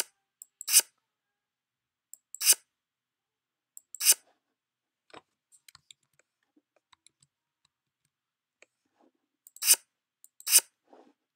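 Sharp clicks at irregular intervals: six loud ones, two close together at the start and two near the end, with fainter ticks between.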